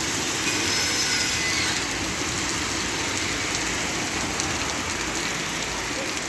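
Heavy rain pouring down, a steady dense hiss with the patter of drops hitting surfaces.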